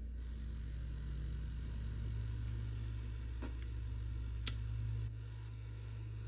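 Steady low electrical hum from the running 1969 Zenith tube television, with two faint clicks near the middle; the hum drops slightly about five seconds in.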